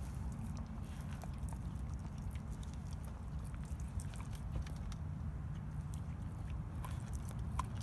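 A dog licking and mouthing a raw rack of pork ribs, giving scattered small wet smacks and clicks, not yet crunching through with its back teeth. A steady low rumble runs underneath.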